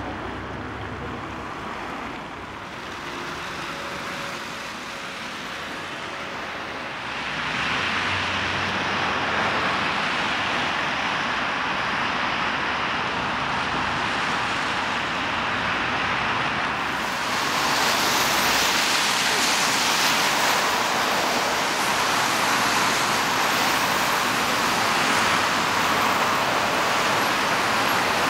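Road traffic on wet city streets: a steady hiss of car tyres on a wet road, with engines passing. It grows louder about seven seconds in and again near the middle.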